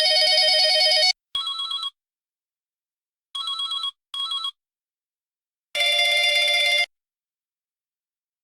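Electronic cell phone ringtone. A loud ringing burst of about a second opens, followed at once by a shorter, quieter warbling tone. Two more short warbling tones come around the middle, then another loud one-second ring near the end, with silent gaps between them.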